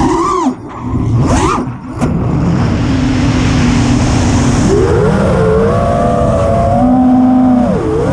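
Brushless motors and propellers of a 6s FPV freestyle quadcopter whining, the pitch swooping up and down with the throttle. The sound drops away sharply twice in the first two seconds as the throttle is cut, then holds a steadier tone that climbs about five seconds in and dips briefly near the end.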